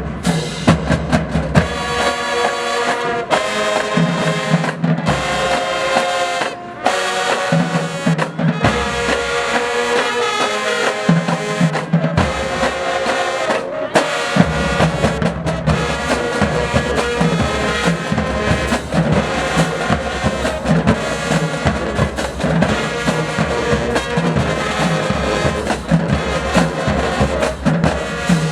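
High school marching band playing, brass over a drumline of snare and bass drums keeping a steady beat.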